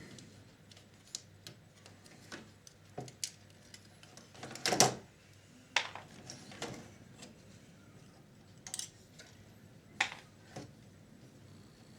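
Scattered small clicks and knocks of plastic and metal parts of a VCR mechanism being handled and worked on, with a louder clatter about five seconds in.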